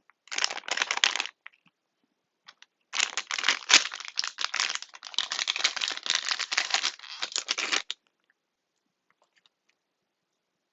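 Plastic packaging crinkling as it is handled and opened: a brief burst near the start, then a longer stretch of about five seconds of dense crackling.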